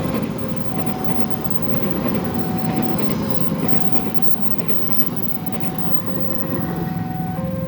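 A train runs through a level crossing, its wheels clattering and rumbling over the rails. Over it the crossing's electronic warning alarm repeats a two-note chime, low then high, roughly every second and a half.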